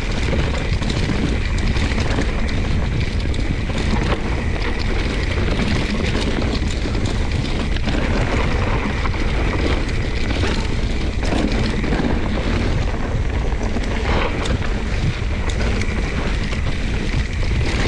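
Wind buffeting the camera microphone, mixed with the continuous clatter and knocking of a mountain bike riding fast down a rough, technical trail.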